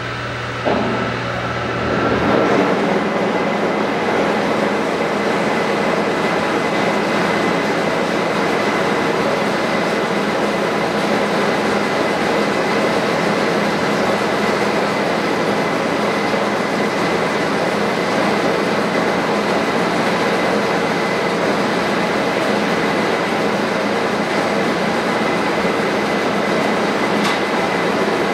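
Monarch 36NN heavy engine lathe's spindle drive starting up about two seconds in, then running steadily under its 25 hp main motor, with a steady high whine over the gear noise.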